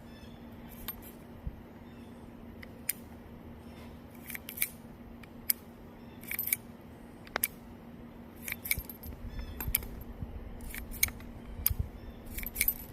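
Metallic clicks and clinks of a Heritage Rough Rider single-action .22 revolver being unloaded at half cock: the cylinder clicking round chamber by chamber and spent casings pushed out with the ejector rod. The clicks come irregularly, some in quick little clusters.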